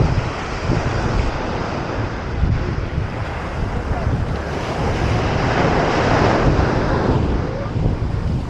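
Ocean surf breaking and washing up the beach, swelling louder about five to seven seconds in, with wind buffeting the microphone.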